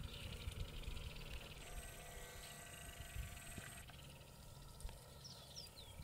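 Low wind rumble on the microphone, with a few faint high chirps from a flock of swallows near the end. A faint steady high tone sounds for about two seconds in the middle.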